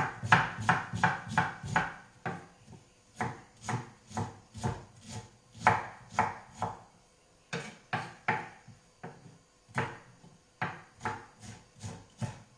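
Knife chopping an onion on a wooden cutting board: quick sharp taps, about three a second, coming in runs with short pauses between them.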